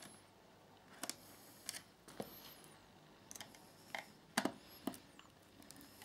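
Faint, irregular clicks and taps of a small screwdriver and fingers working the screws on a laptop's aluminium bottom panel, with a couple of faint high squeaks.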